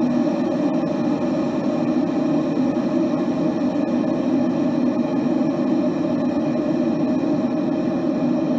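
Water boiling in a kettle: a steady, even bubbling rush that doesn't let up.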